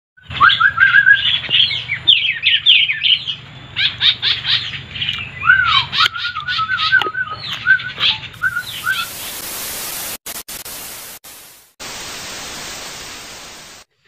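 Many small birds chirping and whistling in quick, overlapping calls, some notes sliding up and down. About eight seconds in the birds give way to a loud, steady hiss that drops out briefly a few times and stops sharply.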